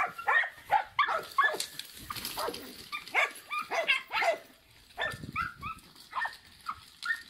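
Dog barking in quick high-pitched yaps, several a second, excited play barking during a game of fetch; the barks thin out about halfway through.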